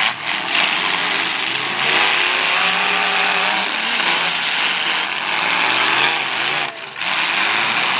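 Engines of several demolition derby cars running and revving, the pitch rising and falling as they drive, with a brief drop in loudness about seven seconds in.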